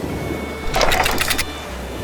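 A short, rapid mechanical rattle of quick clicks lasting under a second, starting about two-thirds of a second in, over a low steady hum.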